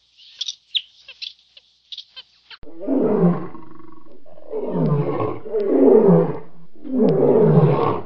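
Male lion roaring: a run of about four long roars, each falling in pitch, starting suddenly about two and a half seconds in. Before the roars, short high chirping calls.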